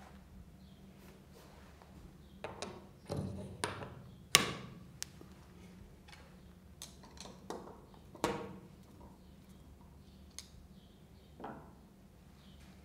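Steel tool holder parts being handled and seated on a metal fixture: scattered knocks and clicks of metal on metal, the loudest a sharp knock about four seconds in.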